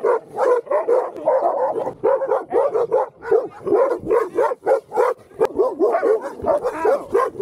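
A pack of several dogs barking at close range, with short, rapid, overlapping barks and no break. It is the angry barking of loose dogs confronting a rider.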